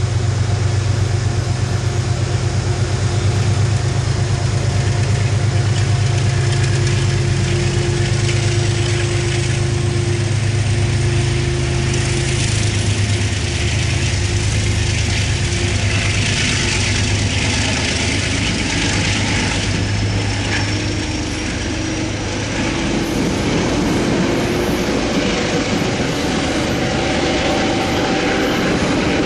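Diesel locomotive's engine running with a steady low drone as the passenger train pulls out. The drone fades about two-thirds of the way through, and the coaches' wheels rolling on the rails take over with a faint rising whine.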